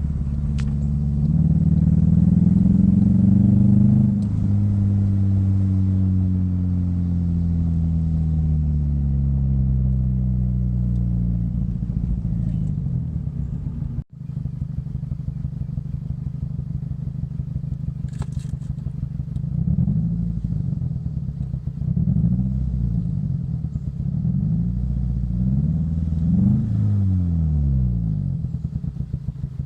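A 2005 Scion xB's 1.5-litre four-cylinder engine is revved up and slowly winds back down, then after a sudden break idles with a pulsing, uneven beat and a few short blips of the throttle. It is misfiring on one cylinder: a bad coil pack on cylinder 4 leaves that plug unfired, causing the rough idle and power loss.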